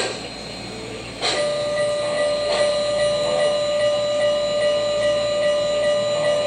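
Model New York Central Empire State Express train pulling into the station, its sound effects starting sharply about a second in with a steady whistle-like tone that holds, and a light repeating ping over it.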